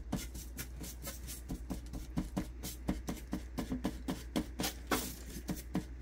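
A metal fork scraping and tapping through baked crumble on a parchment-lined baking sheet, breaking it into crumbs in quick, irregular strokes, about five a second.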